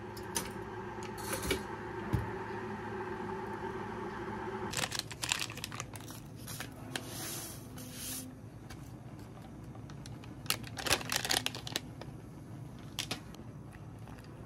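Foil sachet torn open and crinkled, and powdered drink mix poured from it into a ceramic mug, with scattered clicks and knocks of handling. A steady hum runs under the first few seconds and stops suddenly.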